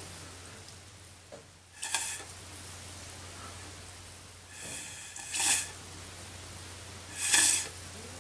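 Short puffs of blown air, four in all and a second or two apart, pushing wet acrylic paint across a canvas.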